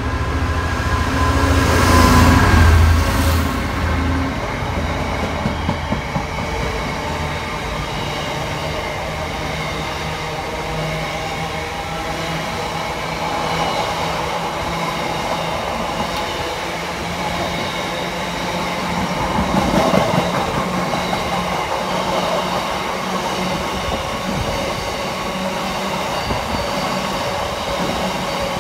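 Diesel freight locomotive passing close by about two seconds in, the loudest moment, followed by a long train of bogie cement tank wagons rolling steadily past, their wheels running on the track.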